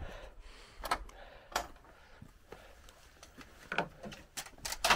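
Door knocks and clicks in a small room, as a door is opened and handled: a single knock about a second in, another shortly after, then a quick cluster of clicks near the end.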